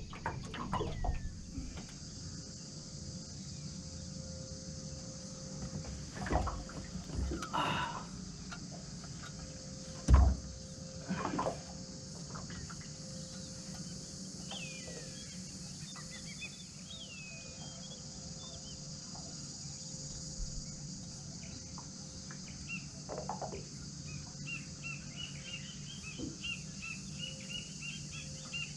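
Birds calling outdoors: a few chirps and gliding calls midway, then a quick run of short repeated notes near the end, over a steady high-pitched hiss. A few sharp knocks break in, the loudest about ten seconds in.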